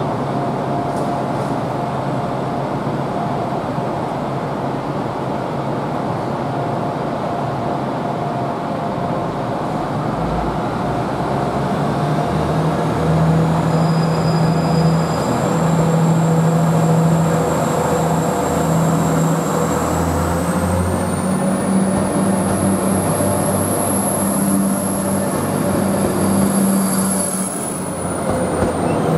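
Class 175 diesel multiple unit's underfloor diesel engines running at a steady note, then powering up as the train pulls away. The engine note strengthens and steps up in pitch, and a high whine climbs and holds as the train gathers speed past.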